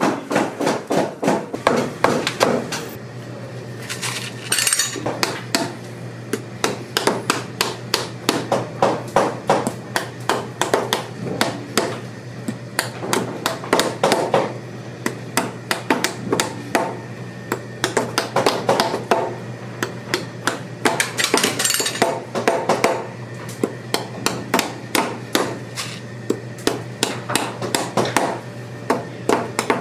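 Cobbler's hammer striking repeatedly, several blows a second in runs, nailing a new leather heel base onto a work boot's heel. A steady low hum sits underneath.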